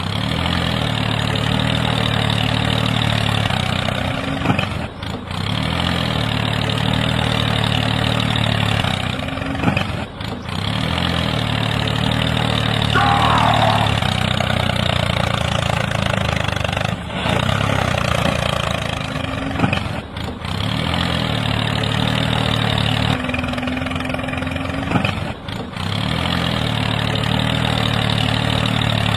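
Tractor engine running at a steady idle, with short dips in level every few seconds. A brief rising chirp is heard near the middle.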